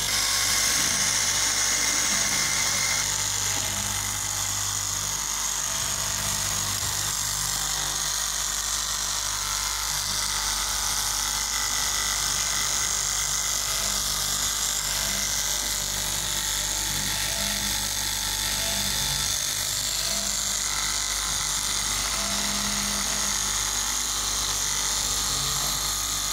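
KM electric straight-knife cloth cutting machine running steadily, its upright reciprocating blade cutting through a thick stack of fabric layers.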